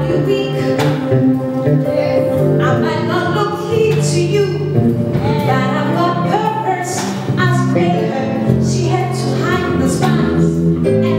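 A woman singing a gospel song into a microphone over sustained instrumental chords.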